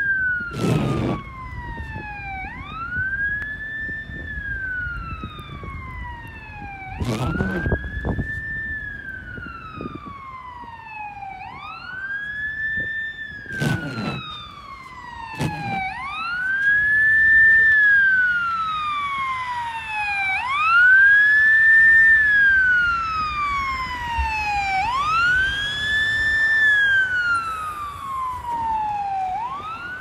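Fire truck's electronic siren on wail, each cycle rising quickly and falling slowly, repeating about every four and a half seconds and getting louder toward the middle as the aerial ladder truck comes near. A few sharp knocks come through along the way.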